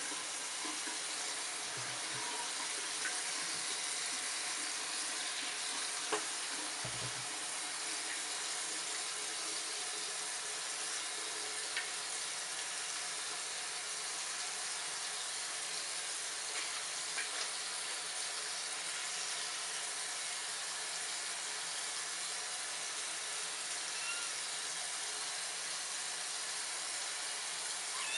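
Tap water running steadily from a bathroom sink faucet into the basin as a kitten is rinsed under the stream, with a few brief faint knocks and splashes.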